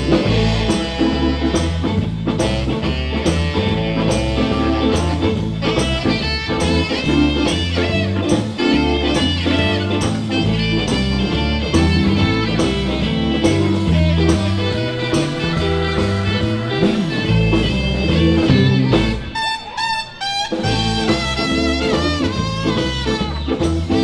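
Live blues band playing through a PA, electric guitar over a drum kit keeping a steady beat; the band thins out briefly near the end, then comes back in.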